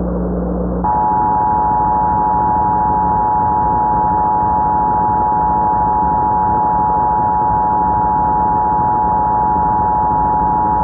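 Emergency Alert System attention signal: the steady dual-tone alert starting about a second in and held unbroken, over a hiss, with the muffled top end of a radio broadcast.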